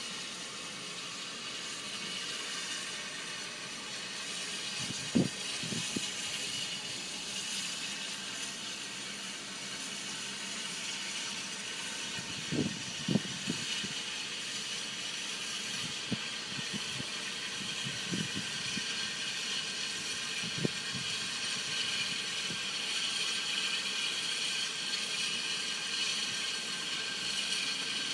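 Santa Fe No. 3751, a 4-8-4 steam locomotive, hissing steadily with escaping steam. A scattering of short metallic knocks rises above the hiss: a pair near the middle, then a few more later on.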